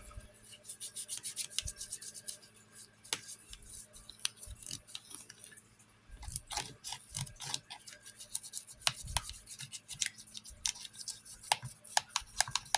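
A broken turn-signal lens being scrubbed and rubbed by hand, heard as a run of short, irregular scratchy strokes with small clicks. The lens is being cleaned and scuffed ahead of clear-coating.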